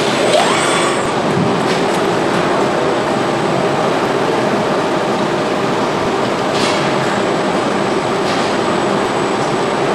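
Steady machinery noise of an automated assembly line, an even rumble with a faint hum and a couple of light metallic clicks in the second half.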